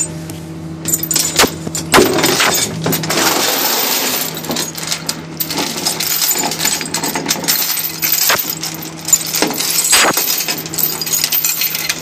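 Tow chain and J-hook rattling and clanking against a steel diamond-plate deck as they are handled and unhooked, in an irregular run of metallic clinks and knocks. A steady low hum runs underneath.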